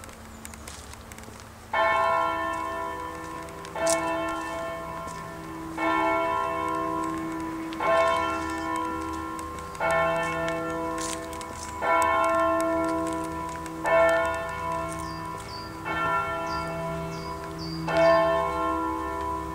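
A single large church bell tolling, struck about every two seconds from about two seconds in, each stroke ringing on until the next.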